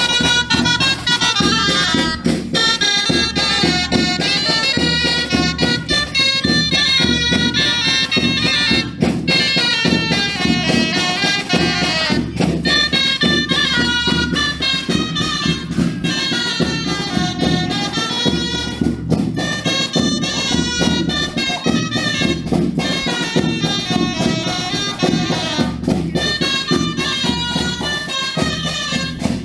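Folk dance music with a wind-instrument melody, playing continuously for the dancers.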